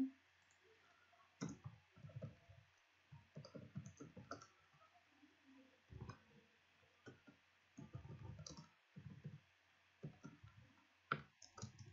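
Faint keystrokes on a computer keyboard, tapping irregularly in short bursts as a line of code is typed.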